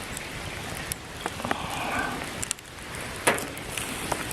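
Fried rice sizzling in a frying pan: a steady hiss with several sharp clicks, the loudest about three seconds in.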